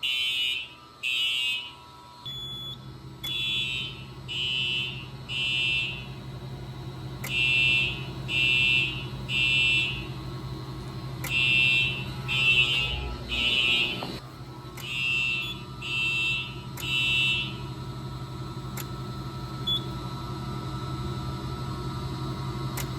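Simplex TruAlert fire alarm horns sounding the temporal code-3 pattern: three short high-pitched blasts, a pause, and repeat, echoing in a large room. The horns stop about seventeen seconds in. A steady low hum comes in about two seconds in and carries on to the end.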